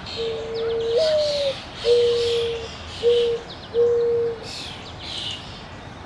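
Mourning dove giving its song: a long low coo that jumps up about a second in and slides back down, followed by three shorter steady coos at the lower pitch. Other birds chirp faintly at a much higher pitch.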